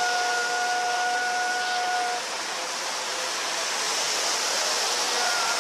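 Boeing 737 jet engines running as the airliner rolls along the runway: a steady rushing hiss with a steady whining tone that stops about two seconds in.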